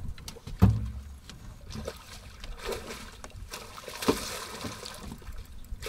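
A big hooked fish being played up to an aluminium boat: water splashing at the surface beside the hull, loudest in the middle, with a few sharp knocks on the boat, the hardest about half a second in.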